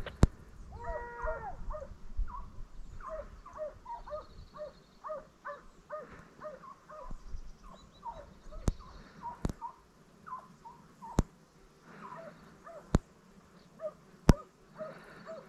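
A pack of hunting hounds baying in the distance, with many short repeated cries and one longer drawn-out bay about a second in. Several sharp clicks sound through it, the loudest about fourteen seconds in.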